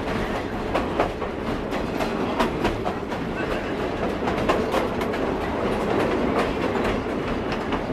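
Open-air railway passenger car rolling along the track: a steady rumble and rattle with frequent sharp, irregular clicks and clacks from the wheels on the rails.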